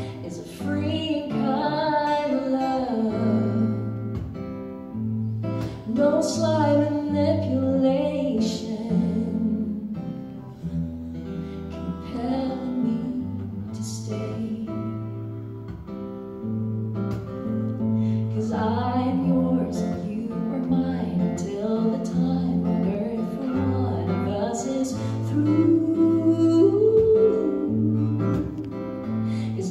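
A woman singing a song with acoustic guitar accompaniment, performed live into stage microphones.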